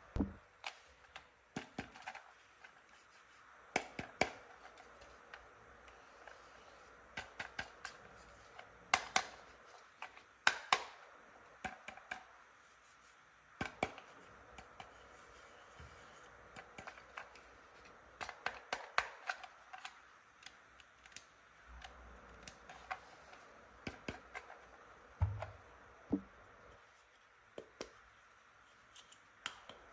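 Plastic toy hairdressing pieces being handled: irregular sharp clicks and taps, some in quick runs of several.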